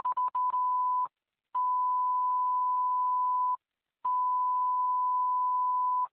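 Fire dispatch alerting tones received on a pager: a steady beep of one pitch sounding three times. The first lasts about a second and is broken by clicks; the next two last about two seconds each.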